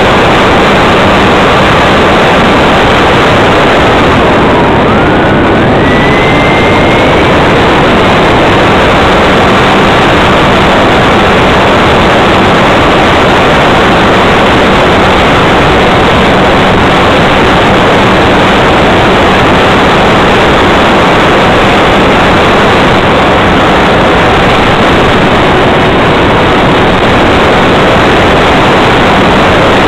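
RC model airplane in flight heard from its own onboard camera: a loud, steady rush of wind and motor-and-propeller noise, with a faint whine that dips and then climbs in pitch about five seconds in.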